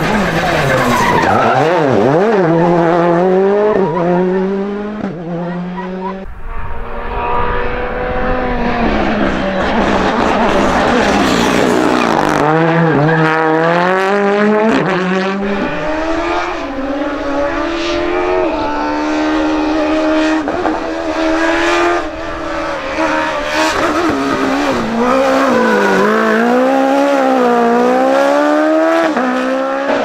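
Rally cars driven flat out one after another, their engines revving up and down quickly through gear changes, with tyres skidding. The sound changes abruptly a few times as one car gives way to the next.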